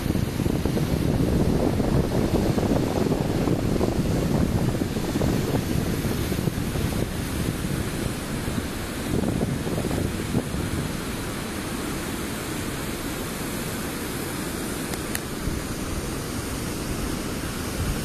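Water pouring over a partly frozen waterfall, a steady rushing noise, deep and even, that grows a little quieter about two-thirds of the way through.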